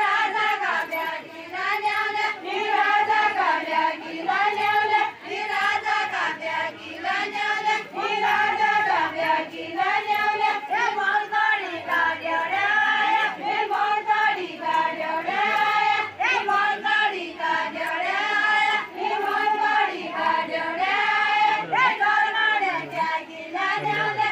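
A chorus of women's voices singing a deuda folk song together, unaccompanied, in short rising-and-falling phrases that repeat about every two seconds.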